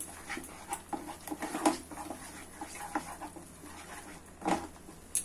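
Spatula scraping and stirring a thick masala paste frying in a kadai: a string of short, irregular scrapes, the loudest about four and a half seconds in.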